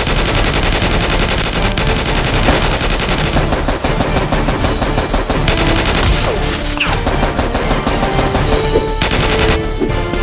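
Rapid automatic gunfire, continuous bursts of shots fired in quick succession, over background music.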